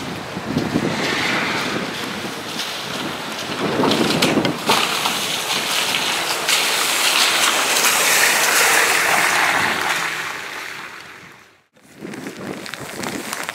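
Steady rain with wind on the microphone, and a car driving past on the wet road, its tyres hissing, loudest from about six to ten seconds in. The sound drops out briefly near the end, then rain and wind return.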